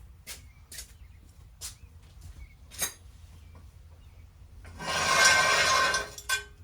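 A few light clicks and knocks of tools being handled, then a loud hiss lasting about a second and a half.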